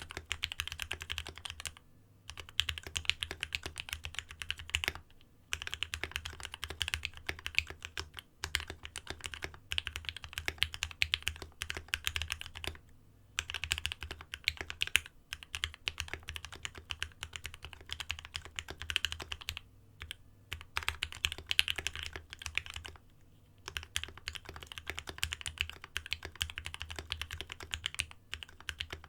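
Fast typing on a Space65 custom mechanical keyboard with lubed H1 linear switches, an aluminium plate and thick PBT keycaps, set on a desk mat. Rapid keystrokes come in runs of a few seconds, broken by brief pauses.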